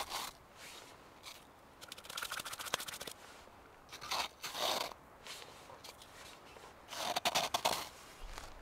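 A small metal cup scooping and scraping into crusty old snow, crunching in short bursts, about four scoops with pauses between.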